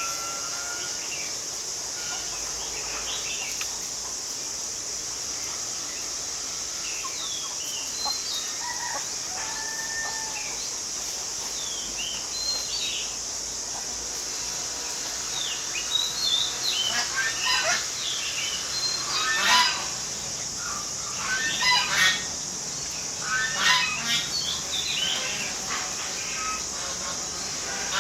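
Birds chirping and calling over a steady high insect drone. The calls become louder and come in quick runs in the second half.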